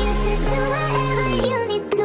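Background electronic music: sustained synth notes over a bass line, dipping briefly near the end.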